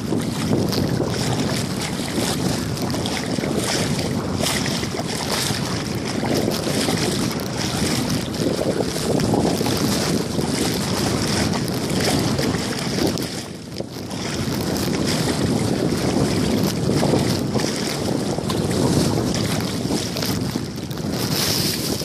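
Wind buffeting a phone microphone, with water sloshing as someone wades through shallow sea water; the noise eases briefly about two-thirds of the way through.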